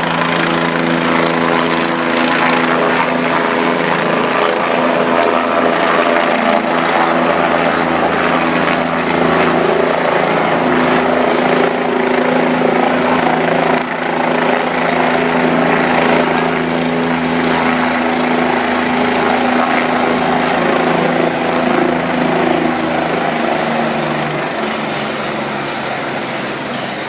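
Helicopter running close by, its rotor and engine making a loud, steady sound. A high thin whine slides lower over the second half, and the sound eases off slightly near the end.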